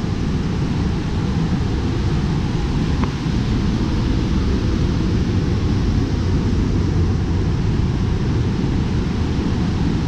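Steady, loud rushing of river water at the dam, heavy in the low range.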